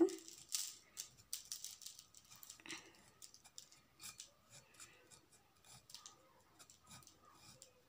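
Paintbrush brushing and dabbing crushed eggshell over a yarn-wrapped bottle: faint, quick scratchy strokes, busiest in the first three seconds and sparser after.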